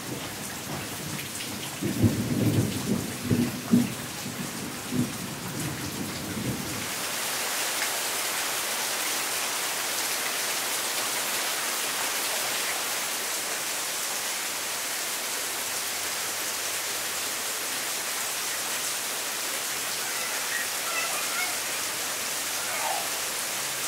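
Thunder rumbling with several loud peaks over falling rain in the first few seconds, then steady heavy rain on leaves and surfaces.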